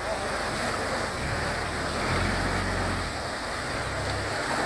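Boat engine running under load against water rushing through an open sluice gate: a steady wash of water noise over a low engine hum that shifts in pitch several times.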